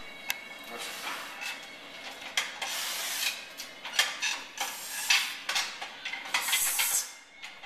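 A powerlifter setting up under a loaded barbell for a squat: repeated clinks and knocks of the bar and plates and shuffling feet, with bursts of hissing noise throughout.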